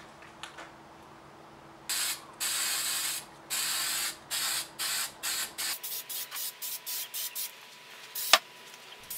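Aerosol spray-paint can spraying in about a dozen hissing bursts, the first few longer and the later ones short and quick. A single sharp click comes near the end.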